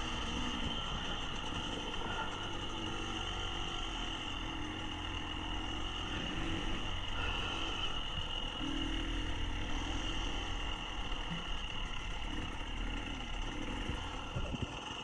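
KTM dirt bike engine running steadily at riding speed, heard from on the bike as it is ridden across a grass track, with wind rushing past.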